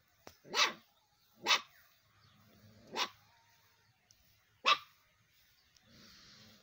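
Puppies barking: four short, separate barks, spaced a second or more apart.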